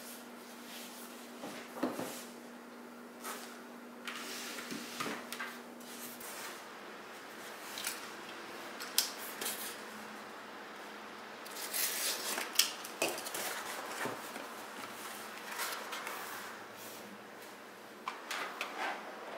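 Small cardboard box being handled and opened by hand: scattered taps, scrapes and rustles of cardboard, busiest about twelve seconds in as the flap is pried open.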